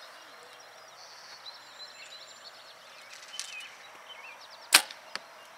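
Compound bow shot: one sharp snap of the released string about three-quarters of the way in, then a fainter knock about half a second later. Birds chirp throughout.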